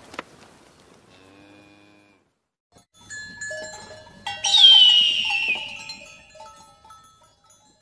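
A cow lowing briefly, then a hawk's loud scream: one long whistle that falls in pitch, the loudest sound here.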